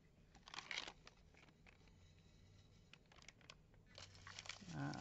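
Faint crinkling and rustling of plastic zip-lock bead packets being handled, in a short spell about half a second in and again near the end, with a few light clicks in between.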